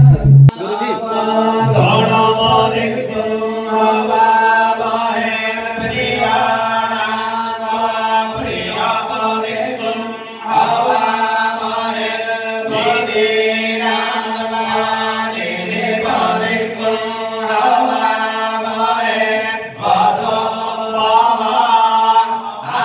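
Hindu priest chanting Sanskrit mantras during a puja, in phrases a few seconds long on a steady reciting pitch. A short thump comes at the very start.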